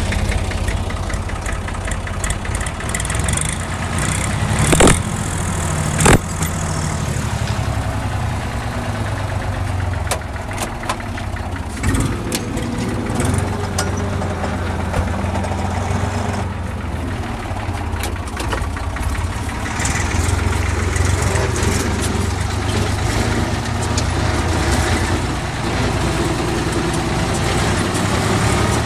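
Ursus C-360 3P tractor's Perkins diesel engine running steadily, heard from inside the cab with loose cab rattles. Two sharp knocks come about five and six seconds in.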